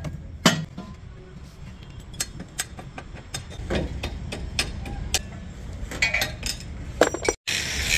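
Irregular metallic clicks and clinks of a steel ratchet wrench working the bolts on a bulldozer's track idler yoke, over a low steady rumble. The sound drops out briefly near the end.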